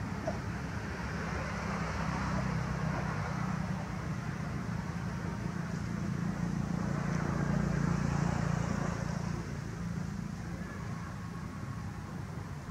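Low, steady rumble of a motor vehicle's engine, growing louder toward the middle and easing off near the end, over a faint high hiss.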